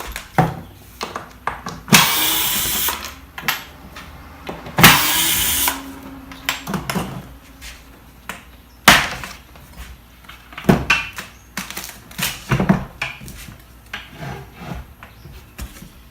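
Clamps coming off a freshly glued plywood-laminated chair seat: knocks and clunks of clamps and wood being handled, with two loud bursts of a power tool about a second long each, near two and five seconds in.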